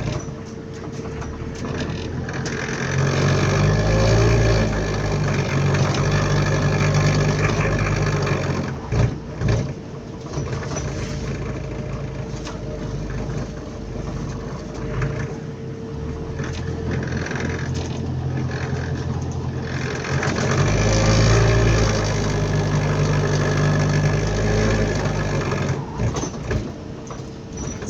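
Bus engine and rattly cabin heard from inside as a passenger: the engine swells to a loud low drone as the bus pulls ahead about three seconds in, drops away around nine seconds, then pulls hard again from about twenty-one to twenty-six seconds, over a steady whine.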